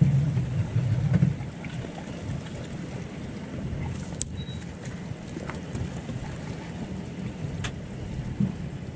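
Suzuki outboard motor running at trolling speed, with water rushing past the hull and wind on the microphone. The engine hum is heaviest in the first second or so; a couple of sharp clicks come later.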